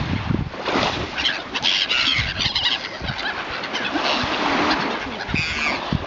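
A flock of gulls calling in many short, repeated squealing cries over the wash of small waves at the shoreline, with wind buffeting the microphone.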